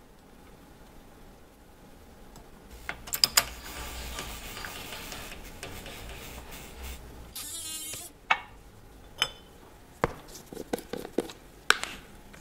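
Sharp metal clinks and handling noises as a bushing is pressed into an aluminium starter-motor end housing with a steel driver: a few clinks about three seconds in, several seconds of steady noise, then a string of separate clinks.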